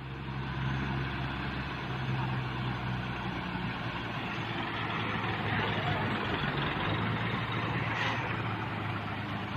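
Heavy diesel engine running steadily with an even low hum, and a short hiss about eight seconds in.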